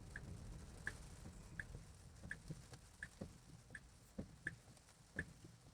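Tesla Model 3's turn-signal indicator ticking inside the car's cabin: a faint, even click about every three-quarters of a second, with a few softer, irregular knocks underneath.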